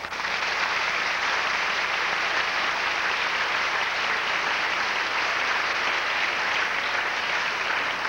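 Audience applauding, a steady dense clapping that holds at an even level throughout.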